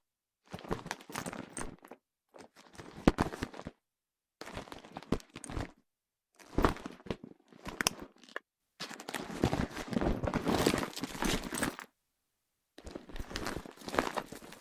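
Pleather handbag with a metal chain strap being handled in a string of separate bursts of rustling and chain clinking, with sharp knocks as it is dropped or set down on hardwood. About nine seconds in comes one longer, unbroken stretch of handling noise lasting some three seconds.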